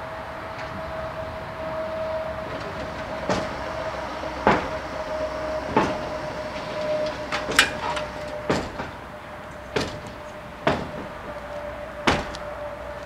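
German level-crossing warning as the barriers come down: a steady electronic tone, joined about three seconds in by sharp ringing strikes roughly every second.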